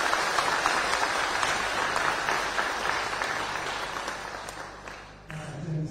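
Congregation clapping hands together, the applause dying away near the end.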